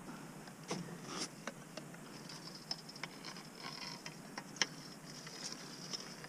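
Faint scattered clicks and scrapes of a long stick being worked down a hole in the ice to hook a snagged fishing line, with one sharper click a little past the middle.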